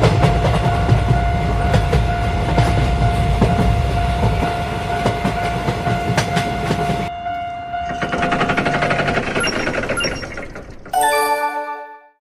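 Train sound effect: a train rumbling past with rail clacks and a steady tone over it, breaking off about seven seconds in before a noisier stretch. Near the end comes a brief horn-like tone that fades away.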